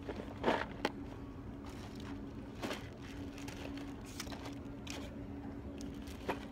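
Short clicks and light rustling as a fishing rod and its line are handled, a few times over the span, over a steady low hum.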